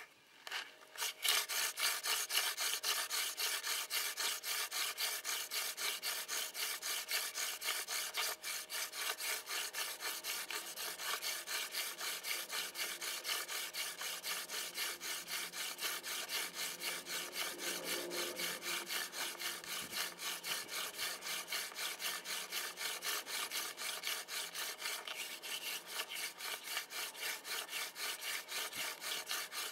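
Hand-drill friction fire: a mullein spindle spun back and forth between the palms, grinding into a spruce hearth board with a steady, rhythmic scratchy rubbing of a few strokes a second. It starts about a second in.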